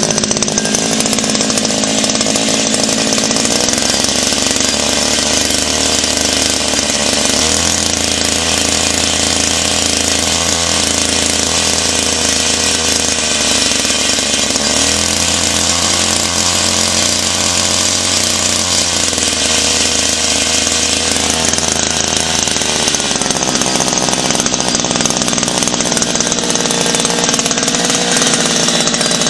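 Small two-stroke engine running steadily at a near-constant speed.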